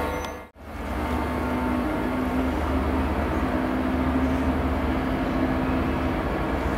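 Transport for Wales locomotive-hauled train of Mark 4 coaches pulling out of the platform: a steady diesel drone with held tones as the coaches roll past. The sound drops out almost completely for a moment about half a second in.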